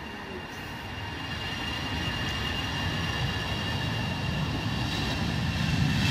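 Jet engines of an easyJet Airbus A319 running, with a steady high whine over a low rumble, growing gradually louder.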